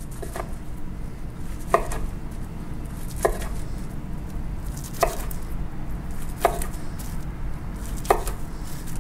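A long knife slicing down through a plastic-wrapped sushi roll and knocking on a wooden cutting board six times, about every second and a half, as the roll is cut into pieces.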